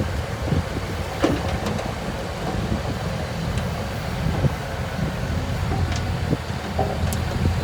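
Diesel engine of heavy earthmoving machinery running with a steady low rumble, with a few sharp metallic knocks.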